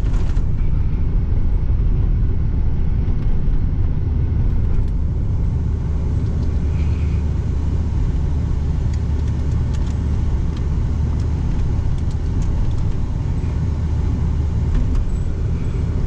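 Steady low rumble of a pickup truck driving along a road, engine and tyre noise heard from inside the cab.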